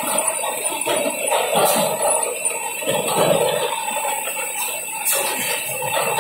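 Rotary bottle unscrambler running: empty PET bottles rattling and clattering continuously against each other and the machine's steel guides and conveyor.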